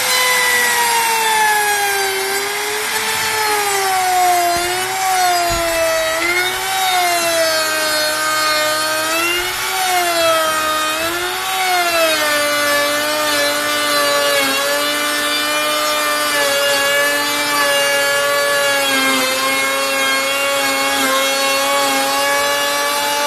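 Handheld electric router with a quarter-inch bit cutting a 5 mm deep groove along a wooden board. Its motor whine dips and wavers in pitch as the bit takes the load, then settles to a lower steady pitch about halfway through.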